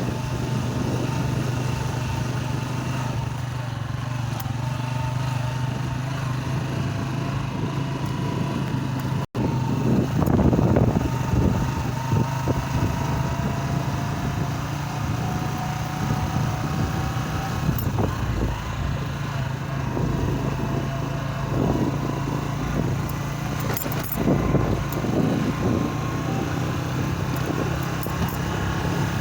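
Small motorcycle engine running steadily under way, its pitch rising and falling a little with the throttle. The sound drops out for an instant at a cut about a third of the way through.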